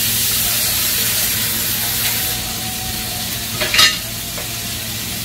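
Chicken feet frying in sautéed spice paste in a pot on a gas burner: a steady sizzle that eases a little about two seconds in. About three and a half seconds in comes one short metallic clink.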